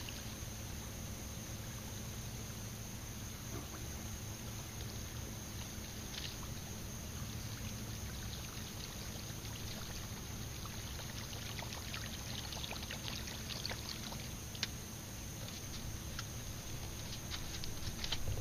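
Boat on calm water: a steady low rumble with faint water trickling, and scattered light clicks of fishing tackle being handled in the last few seconds.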